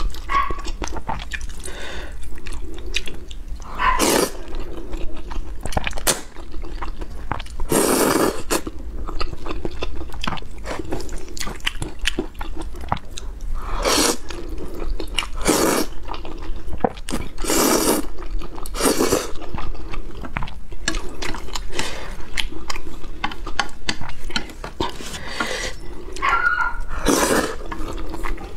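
Wet slurping of saucy spicy noodles, a slurp every few seconds, with chewing and small wet mouth clicks in between.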